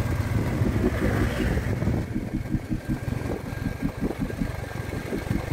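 Royal Enfield Classic 350's single-cylinder engine running steadily while the motorcycle rides along.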